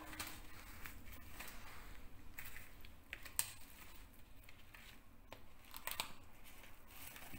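Plastic wrapping and paper being peeled off a raw pork joint: faint crinkling and rustling with a few sharp clicks.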